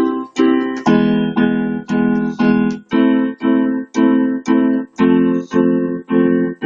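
Instrumental music with no vocals: pitched chords struck in a steady rhythm, about two a second, each fading before the next.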